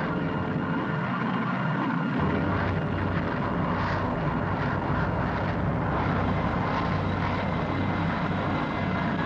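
Steady drone of aircraft engines in flight, with a deeper rumble joining about two seconds in.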